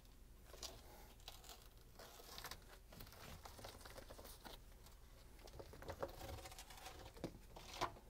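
Faint scraping and small clicks as a rubber Samsung dishwasher tub seal is pulled by a gloved hand out of the groove around the tub, with a couple of louder scrapes about six seconds in and near the end.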